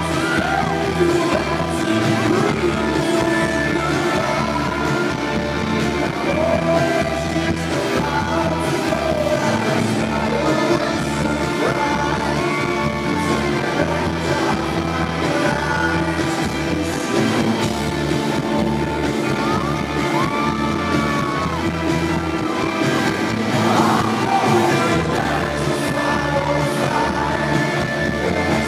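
Live rock band playing with a man singing lead: electric guitar, bass and drums, loud and steady, heard in a large hall.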